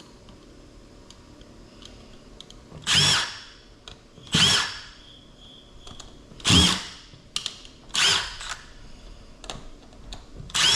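Power drill driving out small screws in five short whirring bursts of about half a second each, with small clicks between them, as a circuit board is freed from its case.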